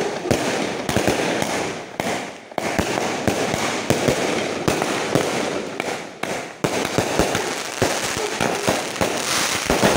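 Aerial fireworks firing in a rapid barrage from the street: a dense string of launch bangs and shell bursts with crackling stars. Two short breaks come about two and a half and six and a half seconds in.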